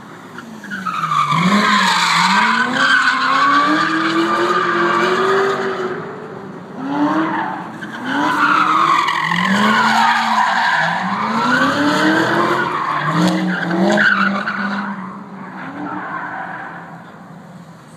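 Chevrolet Corvette V8 engine revving hard through a cone course, its pitch climbing and falling back again and again as the driver accelerates and lifts between turns, with tires squealing through the corners. It fades out over the last few seconds as the car pulls away.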